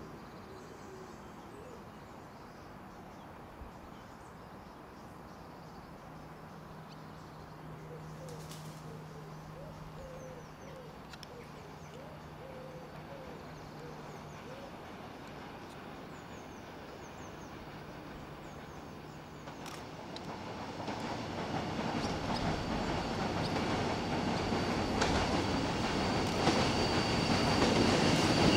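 Irish Rail 071 class EMD diesel locomotive hauling an empty ore train as it approaches. It is faint and distant at first, with birds calling over it, then grows steadily louder over the last several seconds as the engine and wagon wheels draw near, with a thin high whine near the end.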